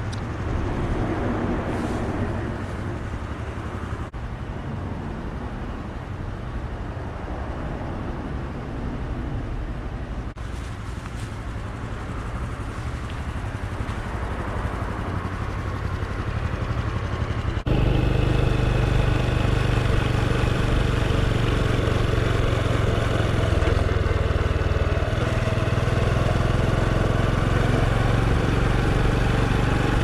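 Honda Super Cub's small single-cylinder four-stroke engine running steadily, with road and wind noise. The sound swells gradually, then about two-thirds of the way through becomes suddenly louder and stays level.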